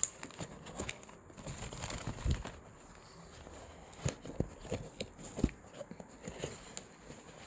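Cardboard shipping box and product packaging being handled: scattered rustles, taps and knocks, with a run of sharper knocks in the second half.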